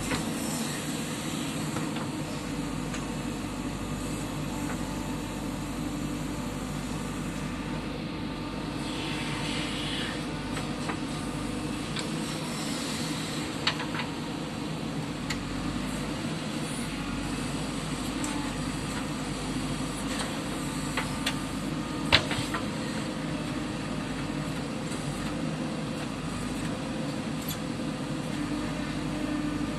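JCB 3DX backhoe loader's diesel engine running steadily while it works, with a few sharp knocks, the loudest about two-thirds of the way through.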